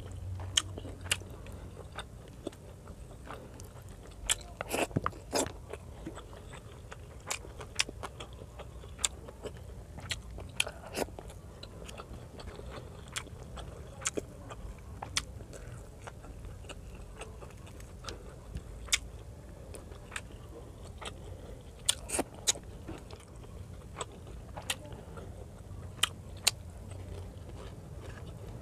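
Close-miked eating by hand: chewing with many irregular wet mouth clicks and smacks as fried fish and rice are picked apart and eaten, over a steady low hum.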